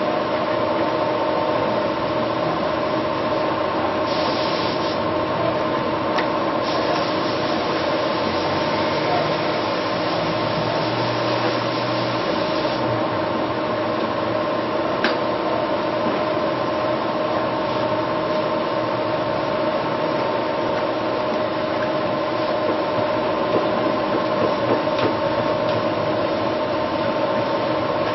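Hand sanding of body filler on a car door panel: a steady scratchy rubbing, heavier from about four to thirteen seconds in, over a constant mechanical hum.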